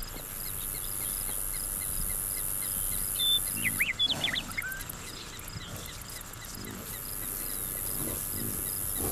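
Prairie field sound: a steady, repeating high chirp throughout, a loud burst of gliding bird calls about three to four seconds in, and several low bison grunts through the second half.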